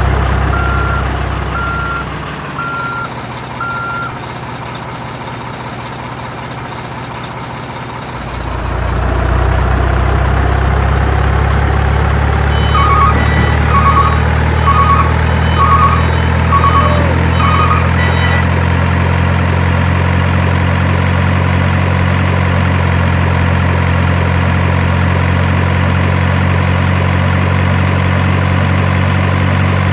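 Heavy truck engine running steadily, dropping lower for a few seconds and then coming back up stronger about eight seconds in. A reversing beeper sounds in a run of short beeps at the start and again midway.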